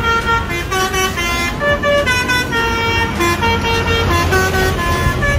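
Telolet horn on an odong-odong mini tourist train playing a tune of short stepped notes, over a steady low rumble.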